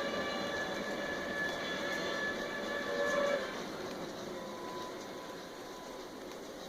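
Train horn sounding over a rumbling running noise. The horn cuts off about three and a half seconds in, and the quieter running noise carries on, slowly fading.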